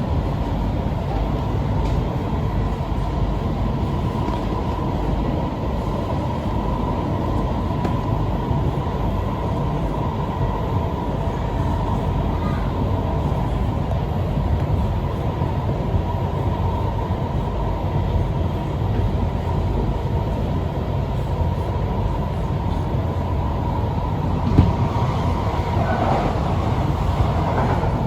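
Steady rumble and a steady whine of a C151B metro train running, heard from inside the car. A sharp knock comes about three-quarters of the way through, followed near the end by a short whine that bends in pitch.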